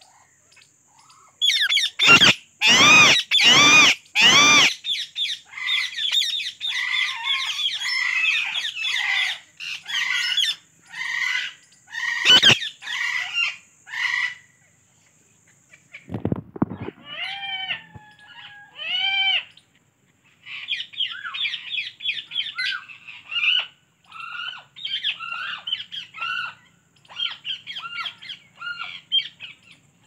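Alexandrine parakeet calling. Four loud harsh squawks come about two seconds in, then runs of quick chattering notes. There are a few gliding whistled notes midway and a long chattering run near the end.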